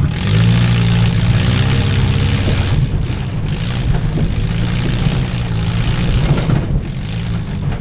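Demolition derby vehicle engines running loudly and steadily, with some revving.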